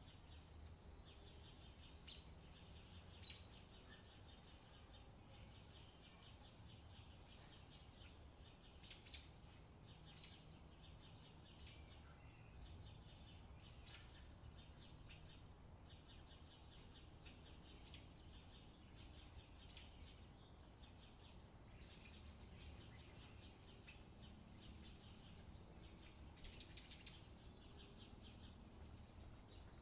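Faint birds chirping and trilling here and there, with a short burst of calls near the end, over a low steady outdoor rumble.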